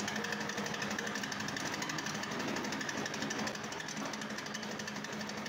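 Motorized grinding mill running steadily, grinding roasted peanuts into paste, with a steady hum and a fast, even rattle.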